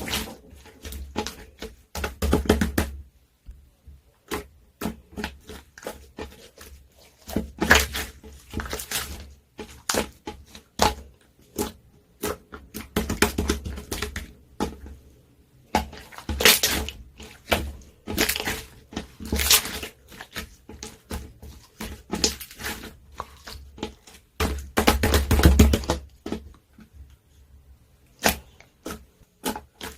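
Clear slime being squished, folded and poked by hand: irregular sticky clicks, pops and crackles, some in short dense clusters.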